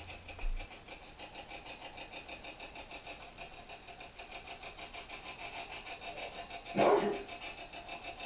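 Spirit box radio sweeping rapidly through stations: choppy static at a steady fast pulse. About seven seconds in comes one short, louder burst of sound, which the investigators take for an intelligent response.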